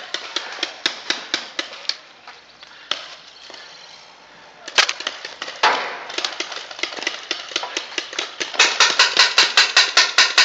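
Paintball markers firing: quick strings of pops, a lull about two seconds in, two loud single shots near the middle, then a rapid string of about six shots a second near the end.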